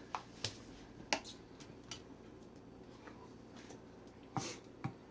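Light clicks and taps of a measuring cup and knife being handled while flour is scooped and leveled, with a short scrape about four and a half seconds in.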